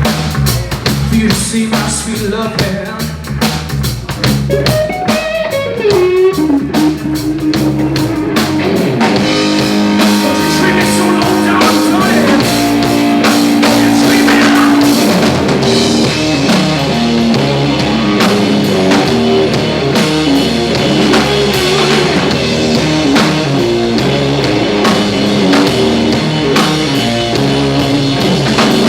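Blues rock band playing live: electric guitar lead with bending notes over a drum kit. The band thickens into a louder, fuller passage about eight seconds in.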